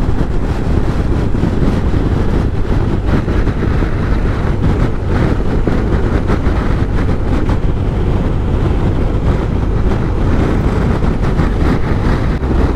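Motorcycle ridden at highway speed: steady engine and road noise, with wind rushing over the microphone.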